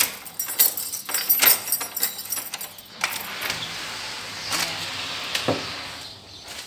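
A bunch of keys jangling and clicking in a door lock as the door is unlocked, for about three seconds. Then comes a steadier noise as the door is opened, with a single knock near the end.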